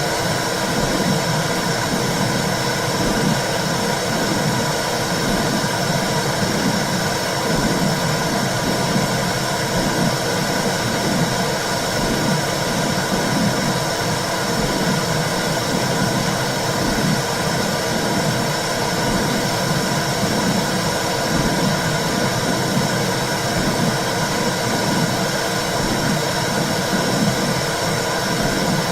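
Womb sound: a steady whooshing hiss with a low, rhythmic pulsing.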